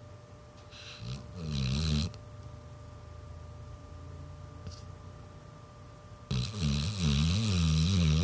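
Pit bull snoring in her sleep: a short snore about a second in, then a longer, louder one from about six seconds in, its pitch wavering up and down.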